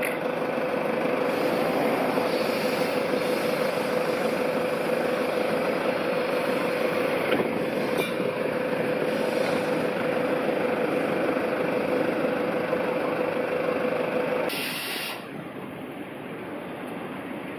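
Standing freight locomotive running, a steady mid-pitched whine over a dense mechanical rumble. About fourteen and a half seconds in there is a short, sharp hiss of released air; the whine stops and the sound drops to a quieter rumble.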